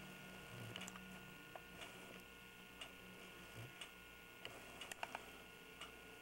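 Near silence with a faint, regular tick about once a second over a low steady hum.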